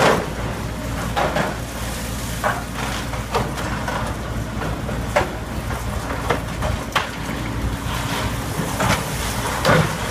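Samsung hydraulic excavator's diesel engine running steadily while its arm tears at a building's roof and wall, with irregular crunches and clanks of breaking material and debris, the loudest right at the start and near the end.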